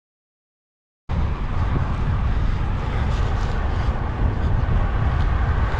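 Wind buffeting the microphone, a steady heavy low rumble that starts abruptly about a second in.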